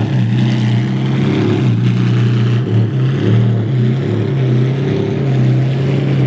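Edo Competition Ferrari Enzo ZXX's V12 running loud at idle as the car creeps off at walking pace, a steady low drone that wavers briefly about three seconds in.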